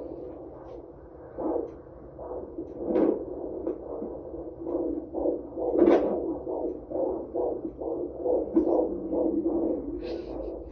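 Fetal heartbeat picked up by an ultrasound Doppler and played through the machine's speaker. It comes through patchy and uneven for the first few seconds, then settles into a fast, even beat.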